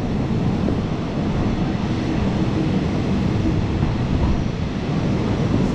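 Passenger train running along a station platform, heard from just outside the carriage window: a steady rumble of wheels on rails mixed with wind rushing over the microphone.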